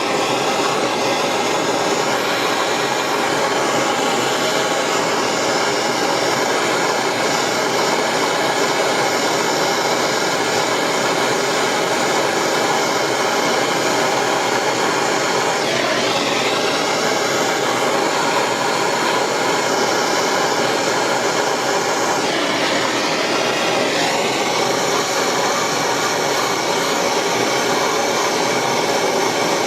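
Propane torch burning steadily as it heats a brass-and-stainless seam for silver soldering. Its pitch shifts briefly about sixteen seconds in and again a little after twenty-two seconds.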